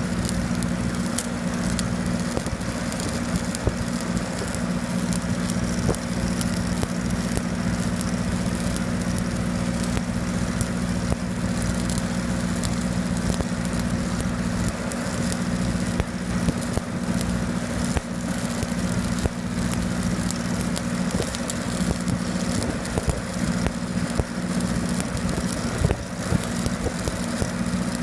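Shielded metal arc (stick) welding on steel pipe: a continuous crackling sizzle of the arc, over the steady hum of an engine-driven welding machine running throughout.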